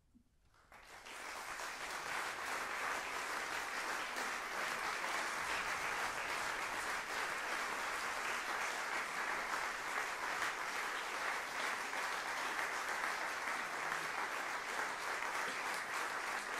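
A moment of silence, then an audience breaks into dense, steady applause about a second in.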